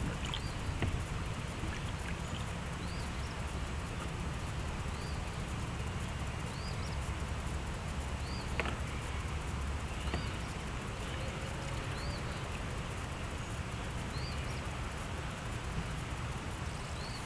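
A bird repeats a short, high, arched chirp about every second or two over a steady low rumble, with a few faint clicks.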